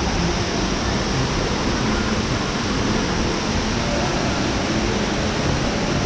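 Indoor waterfall: a curtain of water falling down a wall into a fountain pool with splashing jets, making a steady, even rush.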